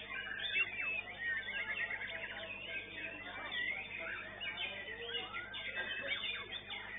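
White-rumped shamas (murai batu) singing in a songbird contest: a dense, overlapping stream of whistled sweeps, chirps and rapid trills, with several birds going at once.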